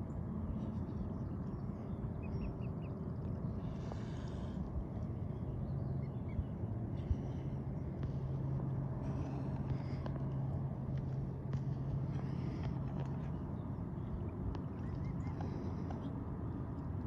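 Steady low outdoor rumble, with a low hum that comes in about five seconds in and fades some seconds later, and a few faint bird chirps.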